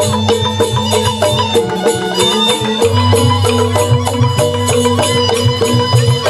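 Balinese gamelan playing an instrumental tabuh petegak: bronze gangsa metallophones struck in a fast, even run of ringing notes, with bamboo suling flutes and a sustained low hum beneath that drops out briefly about two seconds in and returns about a second later.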